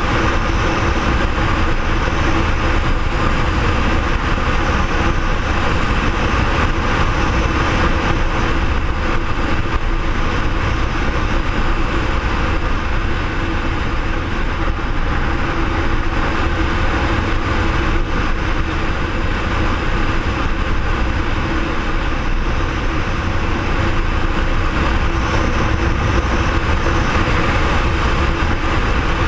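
BMW R1200R's boxer flat-twin engine running steadily at cruising speed, mixed with wind and road noise, with no change in pace.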